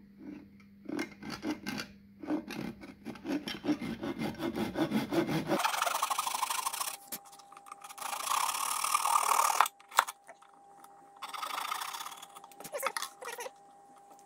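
Fine-toothed handsaw cutting through the wooden neck of a ukulele where it joins the body: quick short strokes at first, then longer, scratchier strokes from about halfway. A single sharp click near the end.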